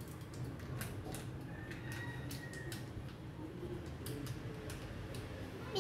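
Scattered light ticks and paper rustling from a packet of popcorn kernels being handled and emptied into a popcorn maker, over a low steady hum.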